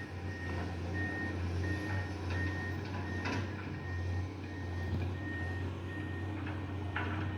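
Komatsu excavator's engine running steadily as a low drone, with its warning alarm beeping at one high pitch about every two-thirds of a second. A couple of sharp knocks come through, one near the middle and one near the end.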